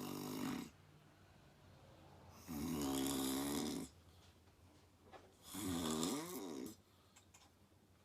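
A sleeping woman snoring: pitched, buzzing snores about every three seconds. One fades out about half a second in, then two more follow, each over a second long, the last wavering in pitch.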